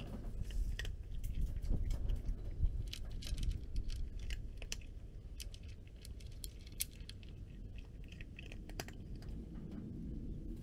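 Cat crunching dry kibble: a run of irregular, sharp crunches over a low steady rumble.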